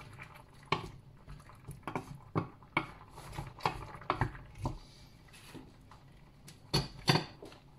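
Irregular light clicks and taps of kitchen utensils against a stainless steel cooking pot, about a dozen spread out, with two sharper knocks near the end.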